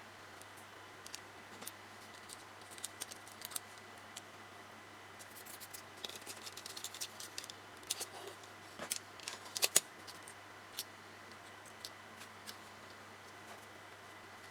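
Small plastic model-kit parts of a Tamiya Mini 4WD being handled and fitted: scattered light clicks and short scrapes, thickest in the middle with one sharp snap near the end of that run.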